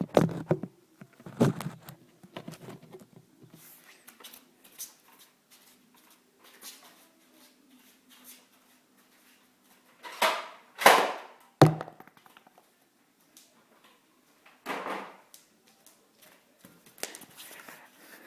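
Nerf N-Strike Elite Thunderblast foam-rocket launcher firing: two loud rushes of air a little past the middle, then a sharp thunk about a second later. A few faint clicks and handling noises come before and after.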